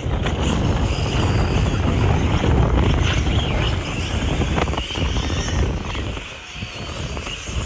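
Radio-controlled off-road buggies racing, their motors revving up and falling back as they drive around the dirt track, with wind buffeting the microphone.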